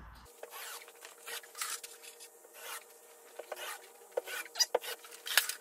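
Light rubbing and scraping with scattered clicks and taps from hands and tools working at the wall boards, over a faint steady hum; two sharper clicks come near the end.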